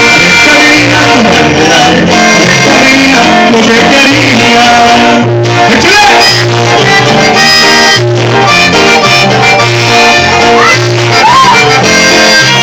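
Live band playing an instrumental passage: accordion carrying the melody over electric bass and guitar, with a steady rhythmic bass line, amplified through PA speakers.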